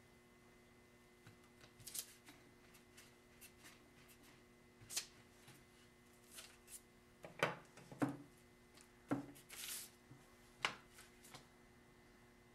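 Quiet, scattered handling sounds on a wooden worktable: light clicks and knocks of a tool and lumps of modelling clay being picked up and set down, and a brief papery rustle as a printed reference photo is shifted. The knocks come thickest in the second half.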